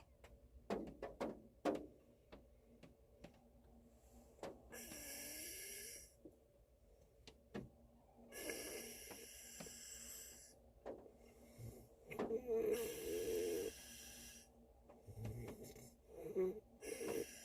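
A man snoring in his sleep, with a slow breath about every four seconds, each carrying a hissing, wheezy rasp. Light taps of rain on the car body fall between the breaths.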